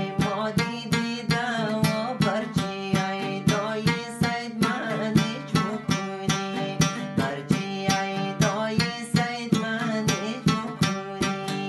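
Hazaragi dambura, a two-string long-necked lute, strummed in a fast, even rhythm of about three to four strokes a second. A man's voice sings over it in places.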